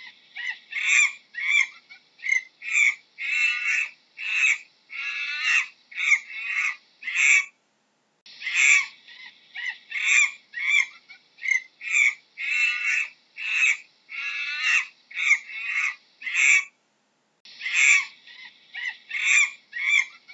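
Monkey calls: a quick series of short, high-pitched squeaky calls, about two a second, over a faint hiss. The series breaks off briefly twice and starts again in the same pattern each time.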